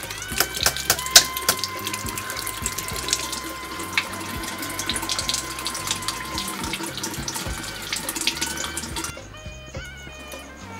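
Bathroom faucet running into a sink, with sharp splashes as hands work in the water. The water sound stops about nine seconds in, leaving only soft background music.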